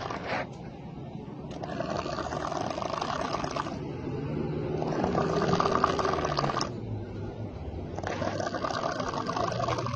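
A sleeping person snoring: three long snores of about two seconds each, a second or so apart, on a regular breathing rhythm.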